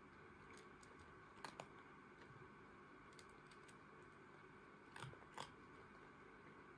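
Cat chewing dry kibble: a few faint, sharp crunches, in pairs about a second and a half and five seconds in, over quiet room hum.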